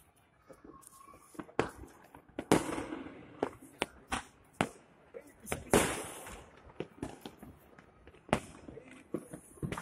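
Fireworks and firecrackers going off: irregular sharp bangs of varying loudness, each trailing a short echo. The loudest come about two and a half, six and eight seconds in.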